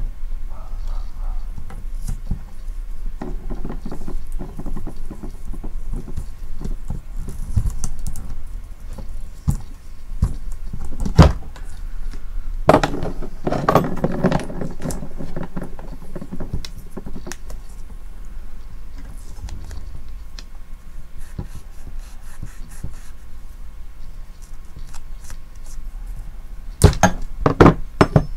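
Handling sounds of small tools and metal parts being worked on a small antenna box: scattered knocks, clinks and scrapes, with a cluster of louder knocks about halfway through and again near the end, over a steady low hum.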